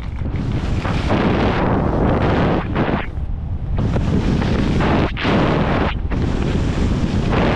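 Wind buffeting the camera microphone of a skier heading downhill, a constant heavy rumble, with the hiss of Dynastar skis' edges scraping packed snow rising and falling through a series of turns.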